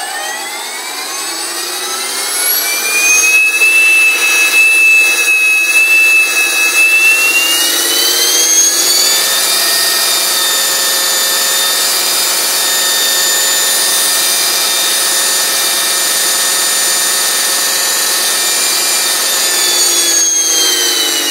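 Electric RC helicopter with a five-blade Vario rotor head spooling up on a test bench: the motor and gear whine rises in pitch over the first few seconds, climbs again about seven seconds in, holds steady, then begins to wind down near the end.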